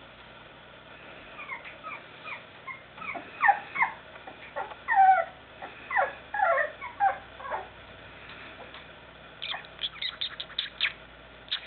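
Month-old Chow Chow puppies whimpering and yipping in short, high cries that slide in pitch, many in quick succession over the first several seconds. Near the end comes a quick run of short, sharp ticks.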